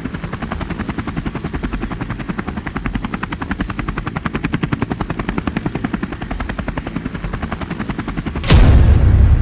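Helicopter rotor thudding in a rapid, even beat of about ten a second. About eight and a half seconds in, loud music with heavy bass cuts in.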